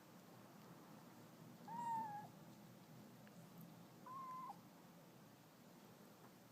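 Domestic cat meowing twice: two short meows about two seconds apart.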